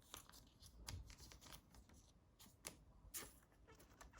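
Faint rustling and light clicks of trading cards being handled and slid against one another.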